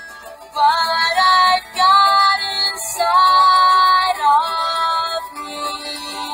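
Recorded English-lesson chant: a high voice singing a melody over instrumental backing. The sung phrase ends about five seconds in, and the accompaniment carries on with a held note.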